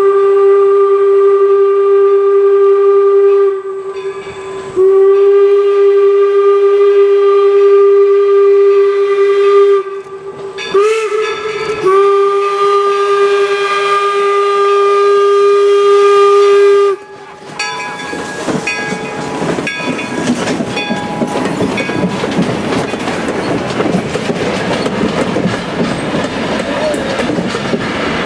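Steam whistle of the replica 4-4-0 locomotive #17 "York" blowing the grade-crossing signal: long, long, short, long, each long blast a few seconds. The train then rolls past with a steady rumble and the clatter of wheels over rail joints.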